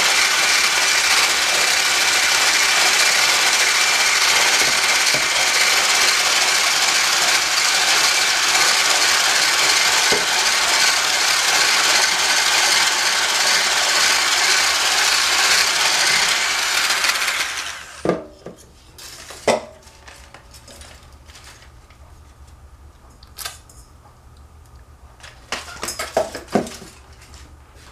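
Electric hand blender running steadily with a motor whine as it whips cream in a plastic cup, then switched off about two-thirds of the way through. A few light knocks and clicks follow as the blender and cup are handled.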